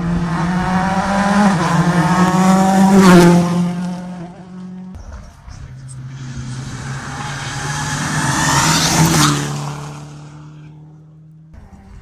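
Two rally cars going past one after the other at speed. Each engine note builds to a peak as the car goes by, about three seconds in and again about nine seconds in, then drops in pitch as it pulls away.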